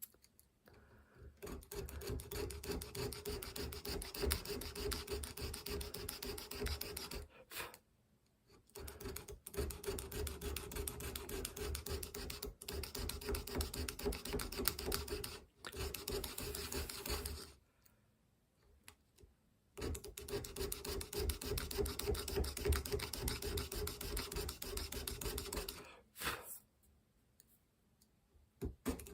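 Fast back-and-forth rasping strokes of a hand tool scraping on a workpiece, typical of hand filing or cutting checkering. It comes in three long runs of several seconds each, with short pauses between them.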